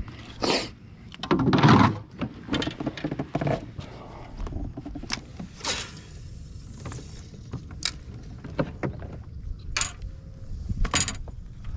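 Scattered knocks and clicks of fishing gear and the hull being handled aboard a kayak, with a short rushing hiss about six seconds in.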